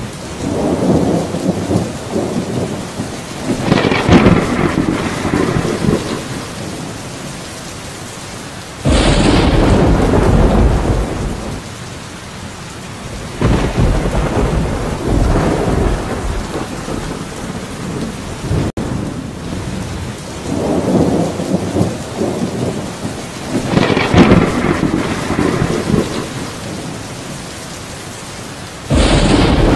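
Steady rain falling with rolling thunder: rumbles swell a few seconds in, then a sudden loud thunderclap with a deep rumble about nine seconds in. The same stretch of rain and thunder repeats about twenty seconds later, as a looped rain-and-thunder ambience.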